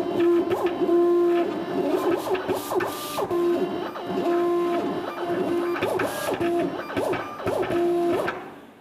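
Vinyl cutting plotter cutting lettering out of self-adhesive banner film: its motors whine in short steady tones broken by rising and falling glides as the knife head and roller move, then stop shortly before the end as the cut is finished.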